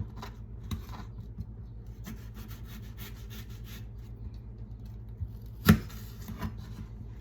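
Kitchen knife cutting vegetables on a cutting board: quick faint cuts with scraping against the board, and one loud knock of the blade or board a little before the end.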